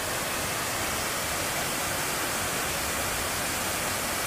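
Waterfall cascading down rock ledges: a steady, even rush of falling water.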